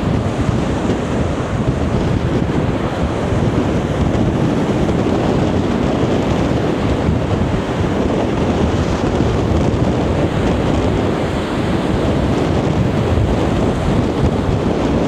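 Strong wind buffeting the microphone over the steady rush of heavy surf from the incoming tide.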